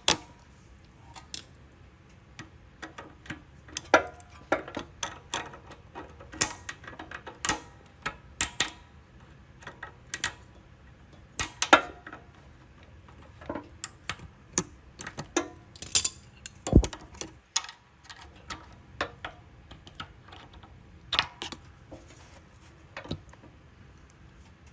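Hand tools and small metal engine parts clicking and knocking, irregularly, while the carburetor and its linkage on a Briggs & Stratton small engine are worked loose.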